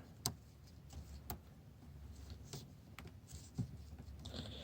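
Faint, scattered small clicks and taps of a screw, ring terminals and stiff wires being handled while they are fitted to an ignition switch's terminals.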